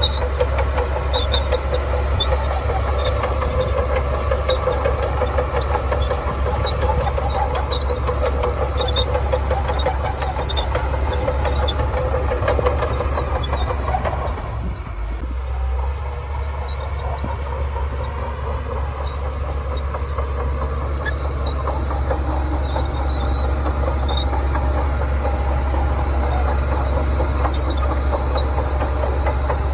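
Shantui DH17C2 crawler bulldozer's diesel engine running steadily under load, with the clatter of its steel tracks; the engine eases off briefly about halfway through, then picks up again.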